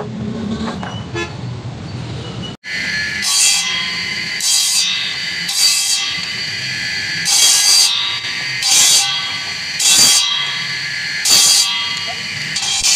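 Electric motor spinning an abrasive disc with a steady whine, and short harsh grinding bursts about every second or so as short bamboo pieces are pressed against the disc to shape them. The machine sound begins after a cut about two and a half seconds in.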